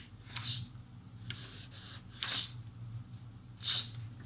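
A woman's voice making the voiceless 'ch' sound three times, short hissing bursts about one and a half seconds apart.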